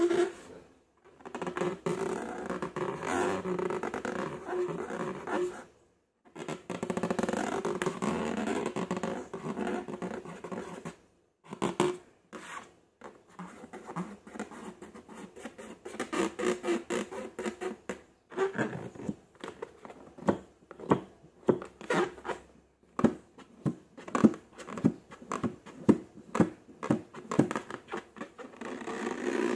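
Slime being handled: sticky squelching and crackling in longer stretches, breaking up about midway into a fast run of short wet pops and clicks.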